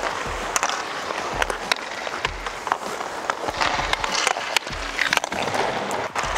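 Ice-hockey skate blades scraping and carving on the ice, with the stick blade clicking against a puck in quick, irregular taps while stickhandling. A slow, steady beat of background music runs under it.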